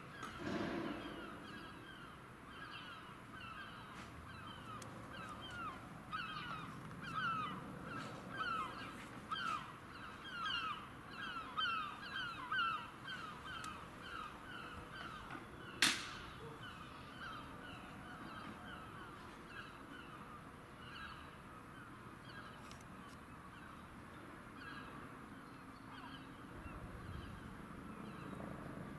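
Birds calling over and over in short, falling calls, several a second, busiest in the first half and thinning out after about fourteen seconds, above a faint low rumble. A single sharp click sounds about sixteen seconds in.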